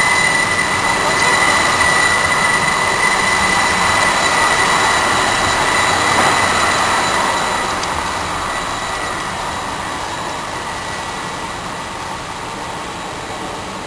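TriMet MAX light rail train passing close by, its wheels running on the rails with a steady high-pitched squeal over the rumble. The sound is loudest about six seconds in and fades as the train moves away.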